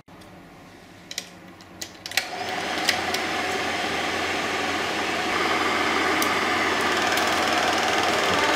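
Film projector starting up: a few sharp clicks, then from about two seconds in a steady mechanical whirr and rapid clatter as it runs.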